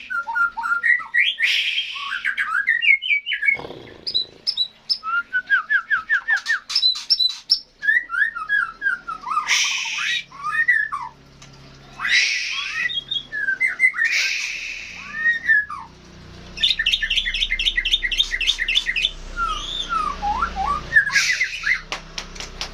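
A songbird in full, vigorous song: a long, varied string of rapid trills, whistled notes sliding up and down, and several short harsh squawky bursts, with hardly a pause.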